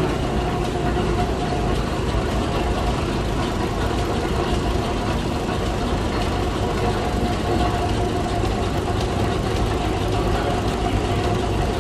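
Stationary steam engine running steadily, driving the cider mill's flat belts and overhead line shafting: a continuous low mechanical rumble with a steady hum.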